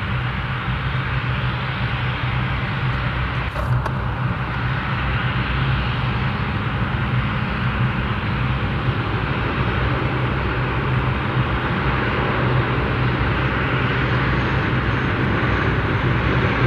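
Steady low engine drone from the airport apron while the Airbus A321 is towed, with one short click about three and a half seconds in.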